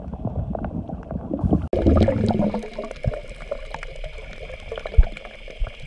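Muffled underwater sound from a camera held below the surface: water sloshing and bubbling, with many scattered clicks and crackles. Just under two seconds in, the sound changes abruptly and becomes brighter and hissier, and there is a single dull knock near the end.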